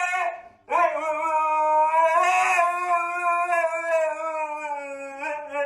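A pet howling: the tail of one long howl, a short break, then a second drawn-out howl of about five seconds that slowly falls in pitch before stopping.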